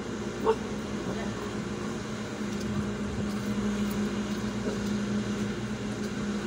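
Steady low hum of an idling car, heard from inside the cabin, with a single dog bark about half a second in.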